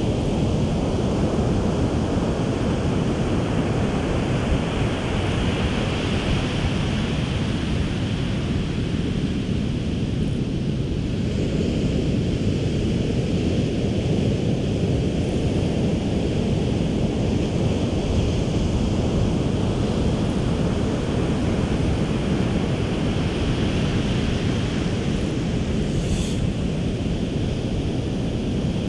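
Ocean surf washing onto a sandy beach, with wind buffeting the microphone as a heavy low rumble. The surf swells louder about six seconds in and again near the end.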